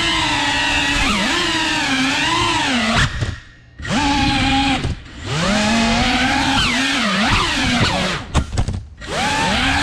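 FPV racing quadcopter's brushless motors whining, the pitch rising and falling constantly with the throttle. The whine drops away for about a second a little after three seconds in, and breaks into a few quick stuttering blips near the end.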